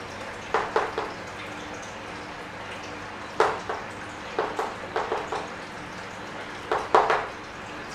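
Chalk on a blackboard as words are written: short taps and scratches in small irregular clusters, over a faint steady hum.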